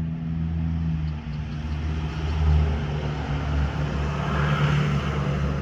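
A motor vehicle engine running steadily with a low, even hum, and a hiss of noise that swells in the middle.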